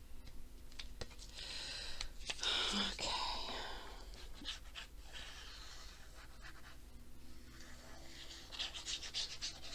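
Paper rustling as a printed sheet is handled, and a precision-tip craft glue bottle squeezed onto it, heard as two spells of soft, scratchy hiss with small clicks.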